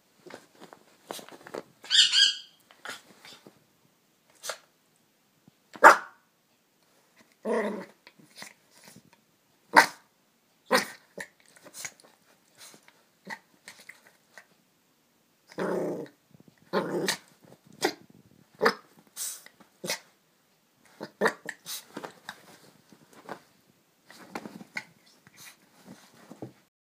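Maltese dog play-fighting with its donut bed: short play barks and growls come in scattered short bouts with quiet gaps between, one higher-pitched yip about two seconds in, along with scuffling against the bed's fabric.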